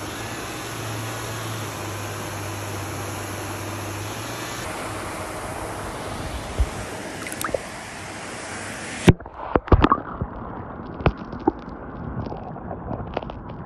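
Steady rushing noise of wind and rippling pond water for about nine seconds. Then it cuts off abruptly to a quieter background with a scatter of sharp knocks and clicks.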